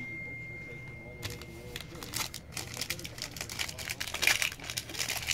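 Foil wrapper of a Panini Playbook trading-card pack crinkling and tearing as the pack is opened, a quick run of crackles starting about a second in and growing toward the end.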